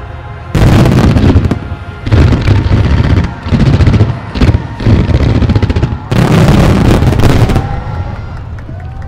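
Fireworks shells bursting overhead in a run of loud volleys: booms with dense crackling, about six barrages, the longest starting about six seconds in, before the bursts die away near the end.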